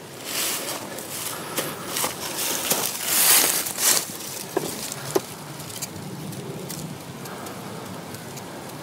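Dry grass and leaf litter rustling and crackling in several bursts, the loudest about three seconds in, then two sharp clicks a little past halfway. After that only a faint steady background remains.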